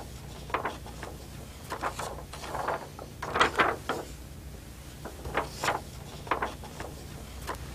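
Plastic overhead transparency sheet being waved and handled, giving irregular bursts of rustling and crackling clicks, densest about three to four seconds in, over a steady low hum.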